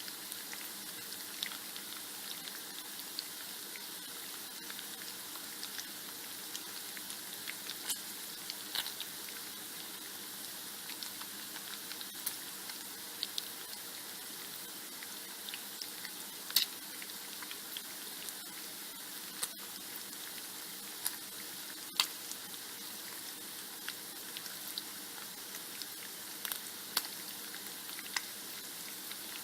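Bacon frying in a pan: a steady sizzle with scattered sharp crackles and pops, a few louder pops among them.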